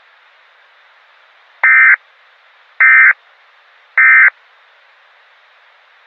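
Three short bursts of EAS digital data tones, the SAME end-of-message code that closes an emergency alert broadcast. Each burst is buzzy, about a third of a second long, with about a second between bursts. A faint steady hiss runs underneath.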